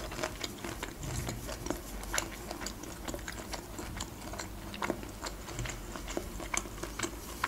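A person chewing boiled shrimp, with many small, soft wet mouth clicks scattered through.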